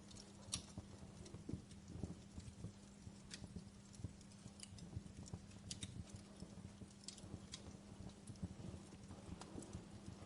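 Faint wood campfire crackling: irregular sharp snaps and pops, several a second at times, over soft low thumps and a steady low hum.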